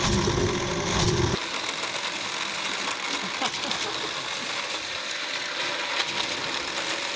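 Battery-powered booster motor of a toy car race track whirring, with a low, evenly pulsing hum. The low hum cuts off about a second and a half in, leaving a thinner steady whir.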